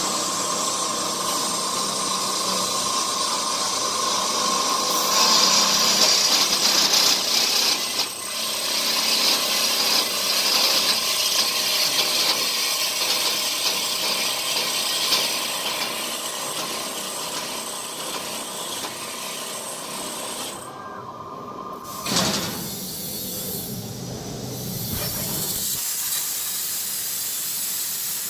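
Drill spindle on a CNC plasma cutting table running and drilling a hole in a metal plate, a steady whine with a loud hiss. It stops a little after 20 seconds in, and then the plasma torch arc starts with a sudden burst and cuts the plate with a steady hiss.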